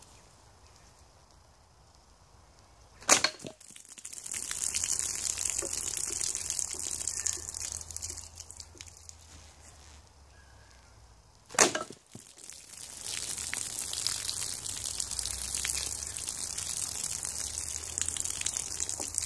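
A yew self-bow trap fires twice, each time a sharp crack as the bow releases and the arrow strikes a plastic water bottle, followed by water gushing and splashing out of the pierced bottle for several seconds.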